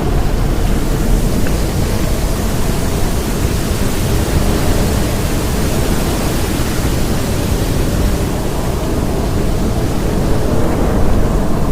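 Storm: a steady, dense rush of rain and wind, heaviest in the low range.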